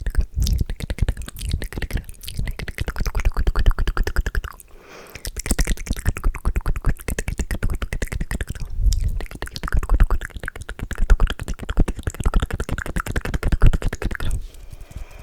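Fast, loud mouth sounds made close to the microphone: a dense run of rapid wet clicks and pops, with short breaks about five seconds in and again near the middle.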